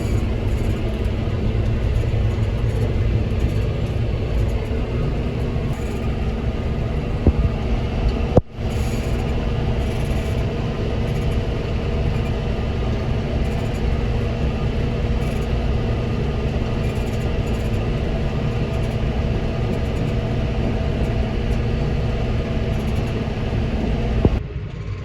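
Tractor engine running steadily while pulling a round baler through hay barley windrows, a continuous low rumble with a steady hum. The sound drops out briefly about a third of the way through.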